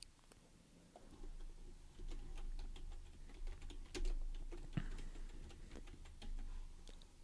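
Typing on a computer keyboard: irregular quick keystrokes starting about a second in and running on unevenly.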